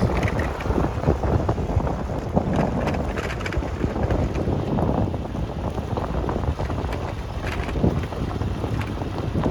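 Wind buffeting the microphone: a steady low rumble with scattered faint crackles.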